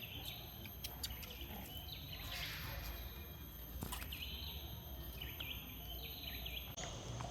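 Quiet forest ambience: short, high chirping bird calls repeat every second or so over a low steady background, with a few faint clicks.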